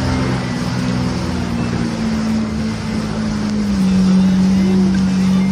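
Jet ski engine running steadily over a rushing noise. About two-thirds of the way through, its note drops slightly and gets louder.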